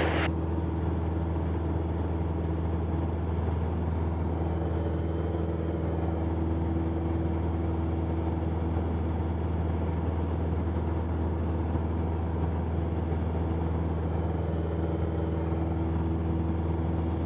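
Cessna 172's piston engine and propeller droning steadily at climb power, heard from inside the cabin.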